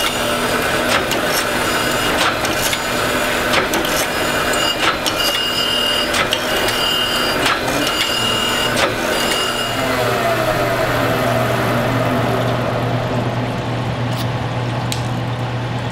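Surface grinder's abrasive wheel grinding a steel knife blank flat, the noise repeating about every second and a half as the table carries the blank back and forth under the wheel. About nine and a half seconds in the grinding stops, and a whine falls in pitch over a steady low hum.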